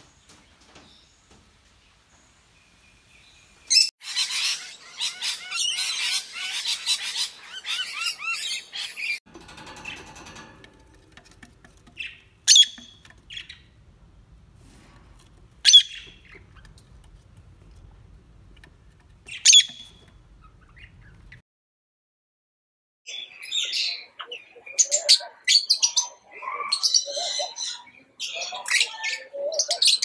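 Parrots calling: a dense burst of high chattering, then three sharp single shrieks a few seconds apart over a low rumble. After a short break, a flock of lovebirds chattering busily.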